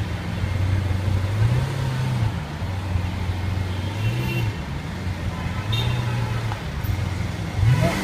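Lamborghini Aventador LP700-4's V12 engine idling with short throttle blips every second or two. Each blip lifts the revs briefly before they settle back, and the sharpest, loudest blip comes near the end.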